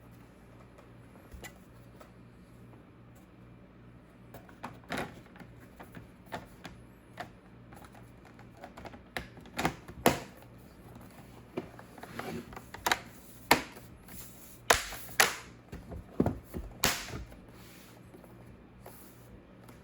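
Irregular sharp clicks and taps, sparse at first and coming thicker from about five seconds in, with the loudest few between ten and seventeen seconds.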